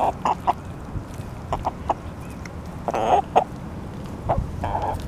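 Several hens clucking in short, scattered calls, with one longer, louder call about three seconds in.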